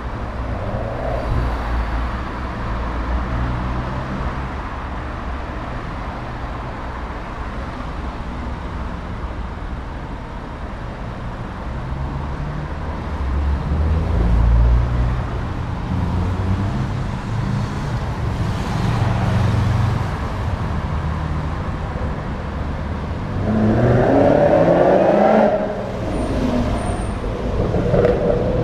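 Performance car engines running along the road, with one car accelerating hard about three-quarters of the way in, its engine note rising steeply before it drops away.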